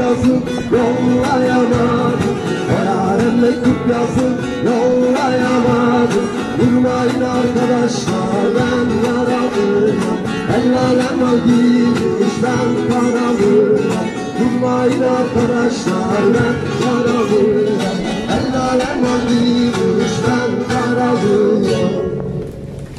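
Live acoustic guitar strummed and picked by a street musician, with a man singing into a microphone; the music cuts off abruptly near the end.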